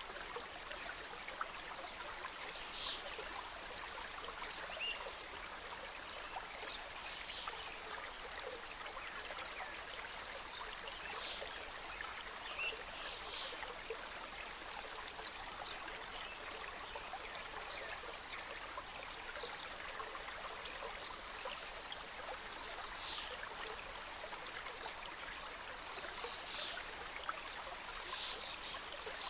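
Small mountain stream cascading over rocks: a steady rushing, with brief high-pitched notes now and then above it.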